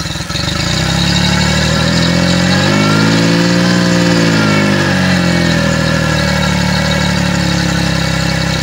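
Yamaha F40 four-stroke 40 hp outboard engine running. It picks up just after the start, revs up and back down once around the middle, then settles to a steady run.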